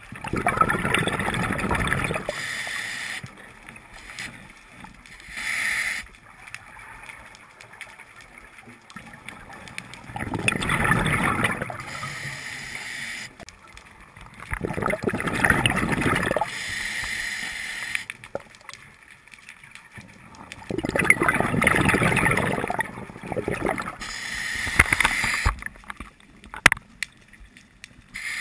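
Scuba diver breathing through a regulator underwater: four long bubbling exhalations of about two seconds each, roughly five seconds apart, with a fainter hiss of inhalation between them. A few sharp clicks near the end.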